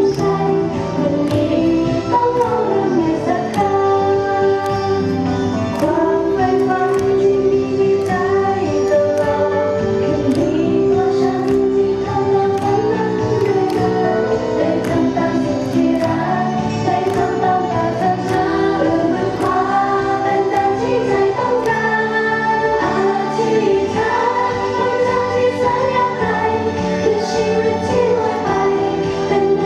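Group of young women singing a pop song together into handheld microphones over a backing track with a steady beat, played through the stage PA speakers.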